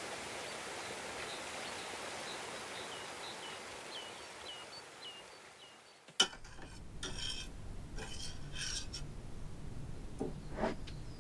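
A small bird chirping over and over, short falling notes, while the sound fades out. Then, about six seconds in, a sharp click, and a spoon stirring and scraping in a stainless steel saucepan on a gas hob, a few strokes.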